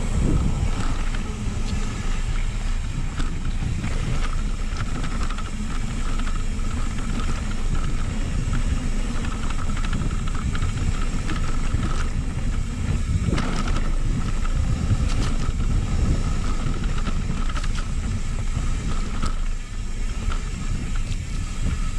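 Mountain bike rolling down a dirt trail: steady wind rumble on the microphone with tyre noise on the dirt and frequent small rattles and clicks from the bike.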